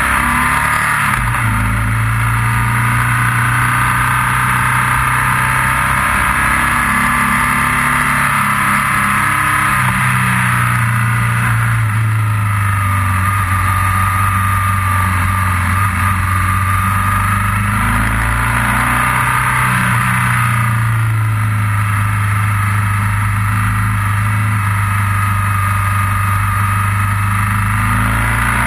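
Motorcycle engine running while riding, its pitch rising and falling slowly with the throttle, over a steady hiss of wind and road noise.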